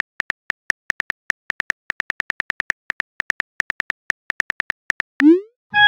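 Simulated phone keyboard key clicks as a text message is typed, a rapid run of short ticks about seven a second with small uneven gaps. About five seconds in, a short rising swoop sounds as the message is sent, and a chime begins right at the end.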